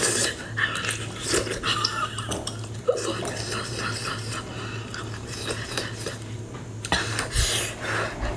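Wet mouth sounds of eating a whole cooked octopus: chewing, sucking and lip-smacking on the soft flesh, with scattered small clicks and smacks.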